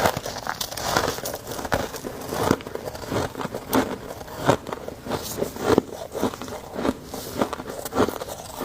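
Chewing chunks of freezer frost: close, repeated crunching bites, a few crunches a second.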